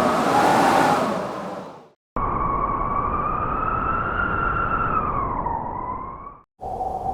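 A gust of blizzard wind, then a wolf howling one long, wavering note that dips near its end. A second howl with several tones starts just before the end.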